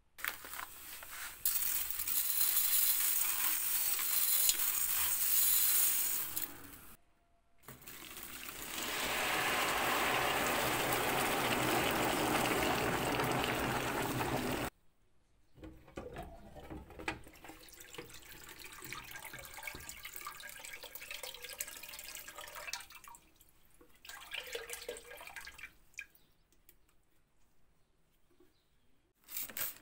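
Water pouring into a plastic tub in two long, steady pours, the second lower in pitch than the first. Then comes a stretch of much softer clicks and handling noises.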